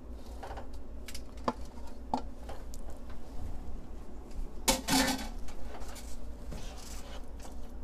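Chopped cooked turkey tipped from a plate into a skillet of creamy sauce, then stirred in with a wooden spoon: light knocks and scrapes against the pan, with a louder clatter about five seconds in. A steady low hum runs underneath.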